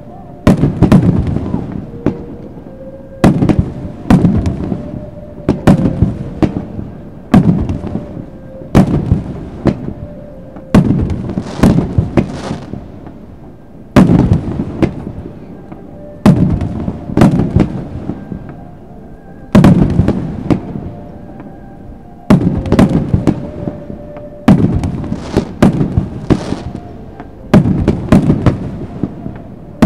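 Aerial fireworks shells bursting in a rapid, irregular series of loud bangs, often less than a second apart. Each bang trails off in a low, rumbling echo.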